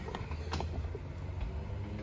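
Needle-nose pliers gripping and tugging at the lubed rubber insulator inside a Tesla Model 3/Y top hat (upper strut mount), working it loose, giving a couple of faint clicks, about half a second in and again a little later. A steady low hum runs underneath.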